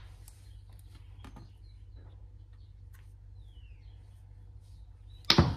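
Silicone Squigz suction-cup toy pieces being handled, with faint soft clicks and a brief squeak as they are pressed together, then one sharp, loud pop near the end as suction pieces are pulled apart.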